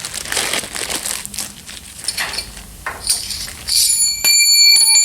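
Crinkling, crackling handling noise, then about four seconds in a loud, steady, high-pitched whine with several overtones.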